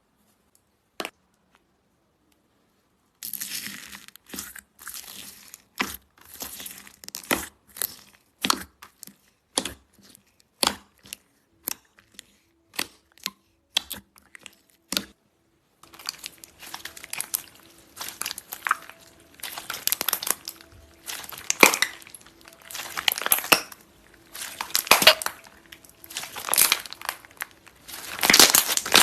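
Slime being squeezed and poked by hand, giving sharp crackling clicks and pops. At first they are spaced out, then about halfway through they turn into denser crinkling and crackling.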